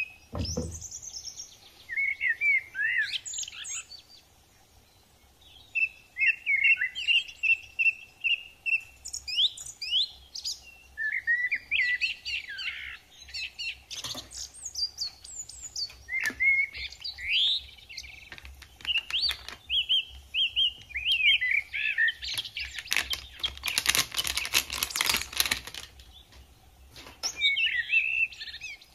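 Small birds chirping and twittering in quick, repeated calls, with a steady hiss lasting about three seconds near the end.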